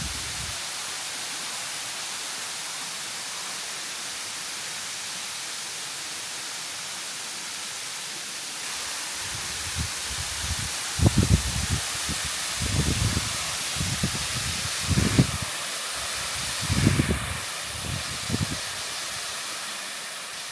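Waterfall: a steady rushing hiss of falling water. From about nine seconds in, irregular low rumbling thumps come and go over it.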